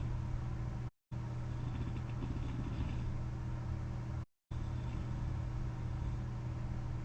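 Steady hum of a CPAP machine's blower, an even tone with a low rumble beneath. The sound cuts out completely for a moment twice, about a second in and a little past four seconds.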